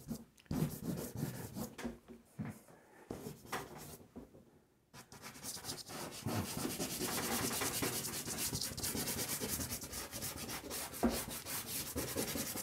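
Dry pastel stick scraping and rubbing across paper on a board: short separate strokes at first, then continuous rapid back-and-forth hatching from about five seconds in.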